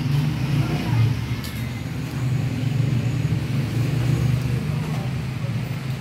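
A steady low mechanical hum, like an engine running.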